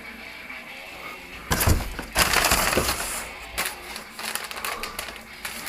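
Packaging being pulled and handled: irregular crunching and crackling bursts, loudest about a second and a half in, followed by a few sharp clicks.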